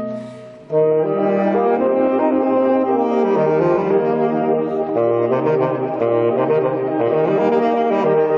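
Saxophone quartet playing. A held chord fades out at the start, then after a short pause the four saxophones come in together, under a second in, playing a moving passage with the baritone saxophone carrying the bass line.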